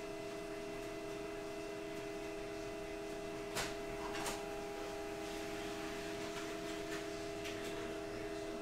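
Steady electric hum of a small machine, holding the same pitch throughout, with two light clicks a little past the middle; the hum stops right at the end.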